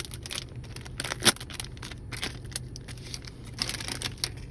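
Crinkling and rustling of a foil Magic: The Gathering booster-pack wrapper being pulled open and handled, with short scattered crackles, the loudest about a second in and again near the end.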